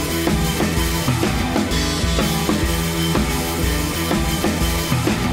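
Background music with a steady drum beat: kick and snare under sustained instrument notes.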